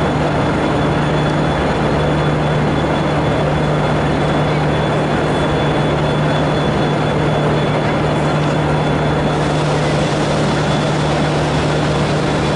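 V/Line A-class diesel-electric locomotive A66 running slowly alongside the platform, its engine giving a steady low drone with a constant noisy rumble and a faint high whine over it.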